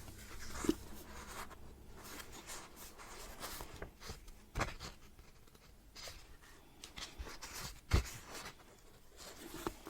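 Paper rustling as the pages of a book are turned and handled, with a few light knocks, the loudest near the end.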